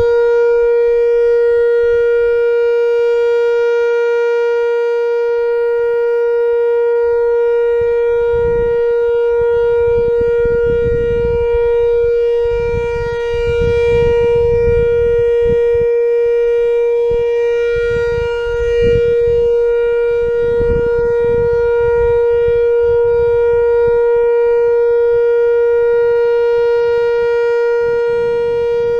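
Whelen WPS-4000-4 electronic outdoor warning siren sounding its steady Alert signal: one loud, unbroken tone that holds its pitch without rising or falling. The owner thinks a couple of its drivers are blown out.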